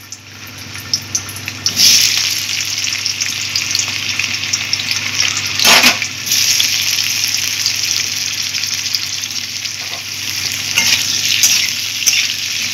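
Potato chunks sizzling in hot refined vegetable oil in a metal kadai. The sizzle flares up as more pieces are dropped in, about two and six seconds in, and a metal spatula stirs them near the end.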